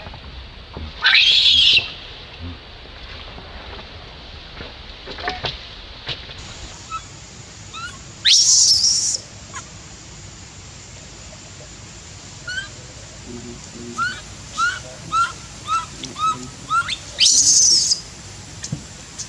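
Infant macaque screaming, with three high-pitched shrieks of about a second each: one near the start, one in the middle and one near the end. A run of short squeaky calls at about two a second comes just before the last shriek. These are the distress calls of an infant left alone by its mother.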